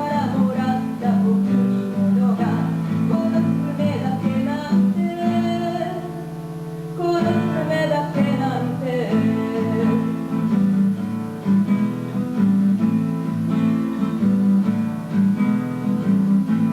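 Acoustic guitar strummed in a live song performance, with a gliding melody line over it.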